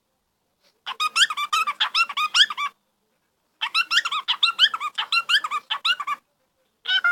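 A bird's rapid, squeaky chattering calls, many quick notes a second. Two bursts of about two seconds each are separated by silence, and a third burst starts right at the end.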